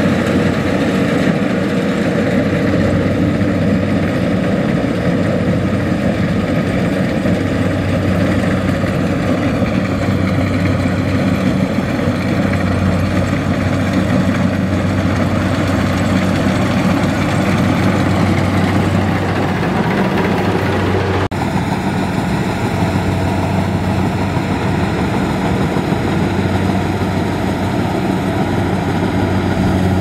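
Kubota DC70 combine harvester's diesel engine running steadily as the machine harvests rice, a constant low drone with a hum. The sound shifts abruptly about two-thirds of the way in.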